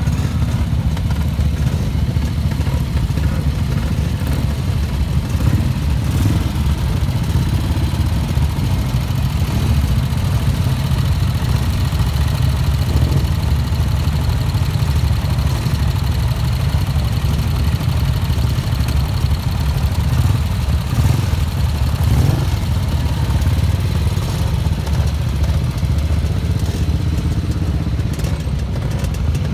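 Several vintage motorcycle engines idling together in a queue, a steady low engine sound with no single bike standing out.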